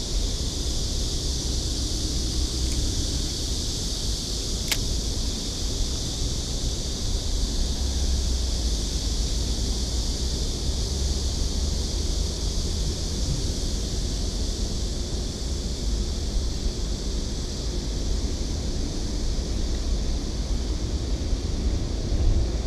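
Wind buffeting the microphone as a low rumble over a steady high hiss, with one small click about five seconds in.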